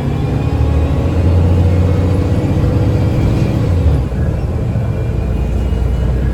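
Diesel engine and Voith automatic transmission of a 2009 Gillig BRT 40-foot transit bus pulling under acceleration, heard inside the bus: a deep engine drone with a rising whine above it, and a shift in the drone about four seconds in.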